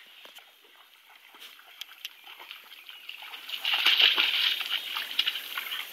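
Dogs wading through a shallow creek, water sloshing and splashing around their legs, louder from about halfway through.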